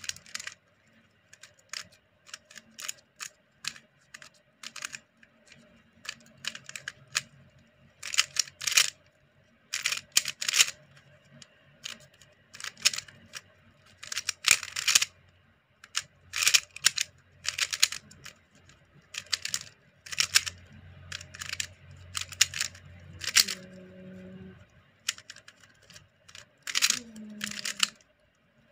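GAN 356M magnetic speed cube being turned by hand: irregular runs of quick, sharp plastic clacks, some in rapid flurries and others single.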